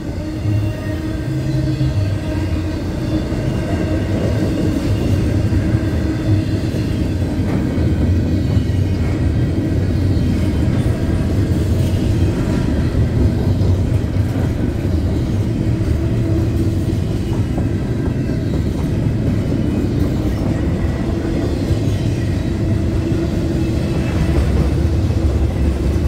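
Intermodal freight train's well cars, loaded with trailers and double-stack containers, rolling past in a continuous rumble of steel wheels on rail.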